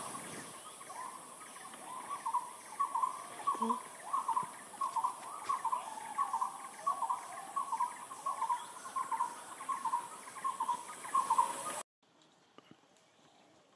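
An animal call repeated a little under twice a second, short notes at a middling pitch, over a steady high-pitched insect drone. It all cuts off abruptly near the end.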